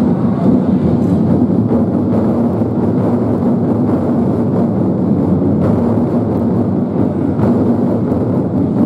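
An ensemble of large Chinese barrel drums played with sticks in a fast, continuous roll, blending into a dense, steady rumble without distinct separate beats.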